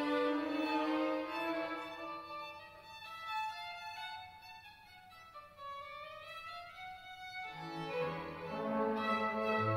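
Small orchestra's strings playing slow held notes, with violins bowing a line that climbs in pitch through a softer middle passage. Cello and double bass come in with low notes near the end.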